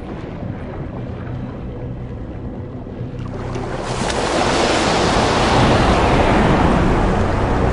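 Sea waves and rushing water, building into a loud, steady surge from about three seconds in, over faint sustained background music.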